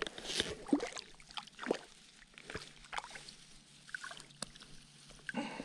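Light water sloshing at the shoreline, with irregular rustles and small knocks from movement in the bank grass.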